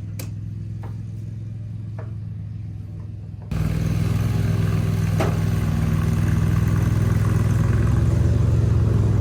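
An engine running steadily with a low hum, with a few light clicks. About three and a half seconds in it abruptly gets louder and fuller, and stays there.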